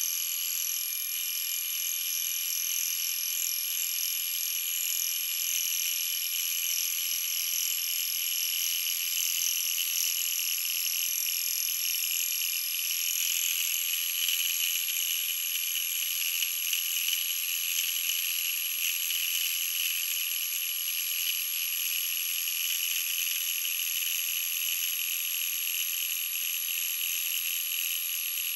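Round column milling machine driving a homemade fly cutter across the cast-iron flange of a Cummins 5.9 12-valve exhaust manifold, facing it flat: a steady, high-pitched cutting sound. Its tone shifts lower about halfway through.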